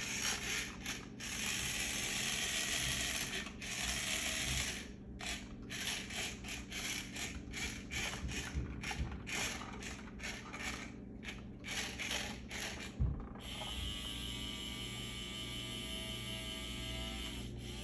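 Rokenbok radio-controlled toy dump truck's small electric motor and plastic gears running in many short stop-start spurts as it is driven. Near the end there is a click, then the motor runs steadily for the last few seconds.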